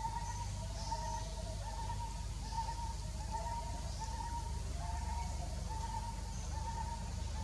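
A bird calling in the background: a steady series of hooting two-part notes, about three notes every two seconds, over a low steady rumble.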